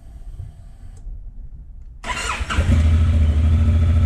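Honda Africa Twin CRF1000L DCT parallel-twin being started for its first run after an oil and filter change. The starter cranks briefly about two seconds in, the engine catches, and it settles into a steady idle.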